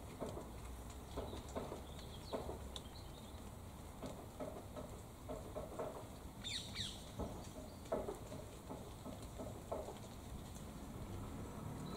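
Light rain pattering and dripping on leaves, a faint scatter of soft irregular ticks. A bird gives a brief high call about halfway through.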